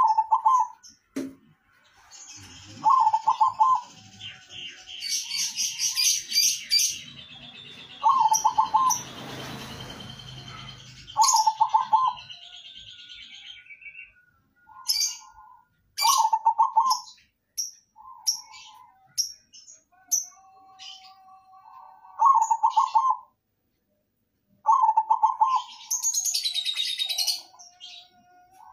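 Zebra dove (perkutut) cooing, repeating its short rolling song phrase every few seconds, with higher-pitched chirping and whistling in between.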